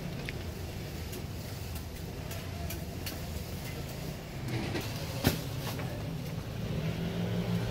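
Steady low rumble of street-stall background noise around a hot griddle, with a few light clicks and one sharp clack of a utensil about five seconds in.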